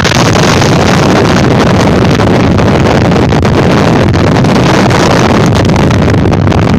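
Loud, steady wind buffeting the microphone on a moving Yamaha Mio scooter, with the scooter's engine running beneath it.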